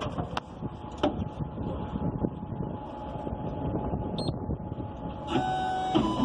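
A few sharp clicks over steady background noise, then about five seconds in a key-cutting machine starts up with a steady motor whine, beginning to cut a Citroen Berlingo key.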